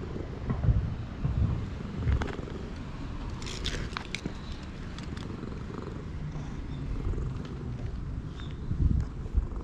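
Tabby-and-white stray cat purring as its head is stroked: a steady low rumble, with a few brief louder bumps and a short burst of crisp clicks about four seconds in.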